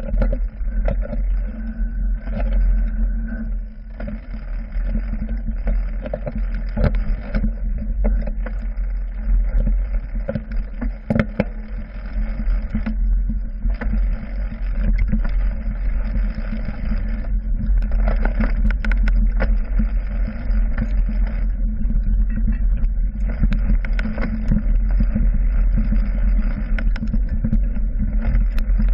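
Mountain bike ridden over a rough dirt trail, heard from a handlebar-mounted action camera: a steady low rumble of wind and vibration, broken by frequent clicks and rattles as the bike and camera mount jolt over bumps.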